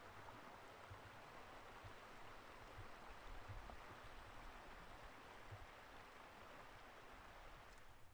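Near silence: faint steady outdoor hiss, with light low rumbles of wind on the microphone.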